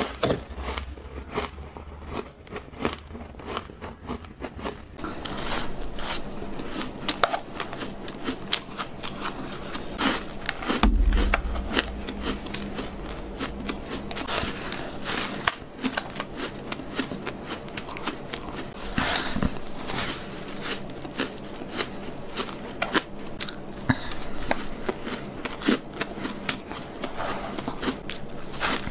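Close-up crunching and chewing of powdery ice, with dense, irregular crisp crackles as it is bitten and crumbled in the hands. There is a dull low bump about eleven seconds in.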